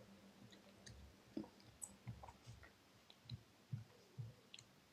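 Near silence: faint room tone with about ten soft, scattered clicks and light thumps.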